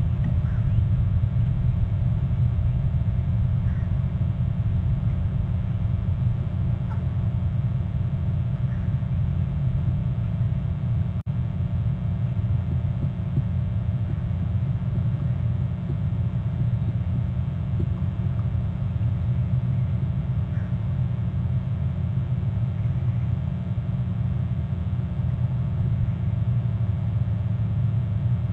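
Steady low background rumble, with a brief dropout about eleven seconds in and a few faint short chirps.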